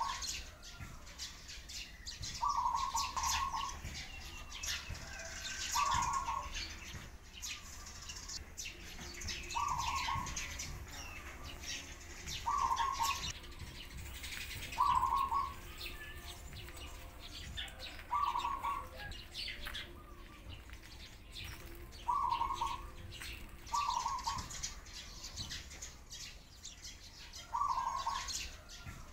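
Doves calling with sparrows chirping. A short call repeats about every three seconds, about ten times, over quick, busy chirping.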